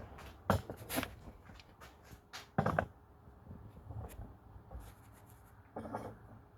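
Handling noises: a few scattered knocks and clatters of hard objects being picked up and set down, loudest about half a second in and again near three seconds, with a shorter clatter near the end.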